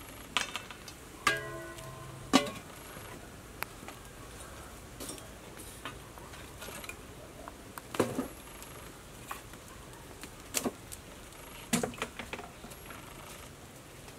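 Metal cookware clanking: several sharp knocks in the first two and a half seconds, one ringing briefly, as a domed aluminium lid goes onto a large cooking pot. After that come a few scattered sharp clicks and pops from the wood fire burning under the pot.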